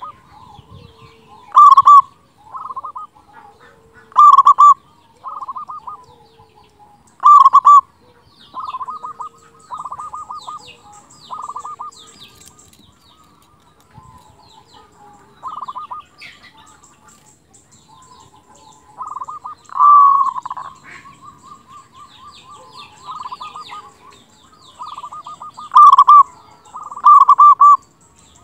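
Zebra dove (perkutut) cooing: short rolling phrases repeated every second or two, some loud and some softer, with a brief lull midway. This is the big-voiced song the dove is kept for.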